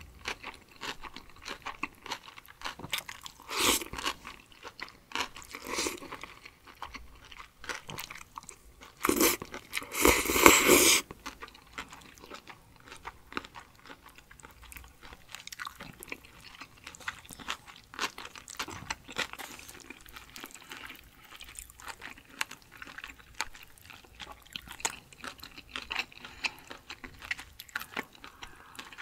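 Close-miked eating of spicy cold noodles: slurping and chewing, with many small clicks and mouth sounds. A louder stretch of about two seconds comes about ten seconds in.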